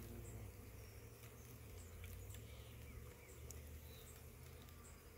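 Near quiet: a faint low rumble with a few light clicks and ticks as wooden hive frames are shifted in a nucleus box among the bees.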